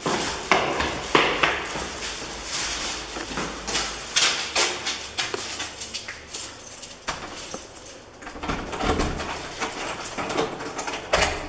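Irregular knocks, clatters and rustling, like things being handled and moved about, with a few sharper thumps.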